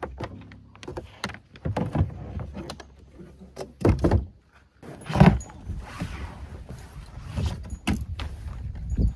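Gear being unloaded from a plastic kayak: bungee cords unhooked with clicks and knocks, the hatch cover lifted off with two hard thuds about four and five seconds in, then a nylon dry bag rustling as it is pulled out of the hull.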